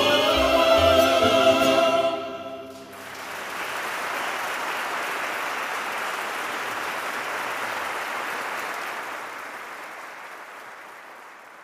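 The final held chord of a choir with an instrumental ensemble, ending a Paraguayan polka, cuts off about two seconds in. Then the audience applauds, the clapping slowly fading near the end.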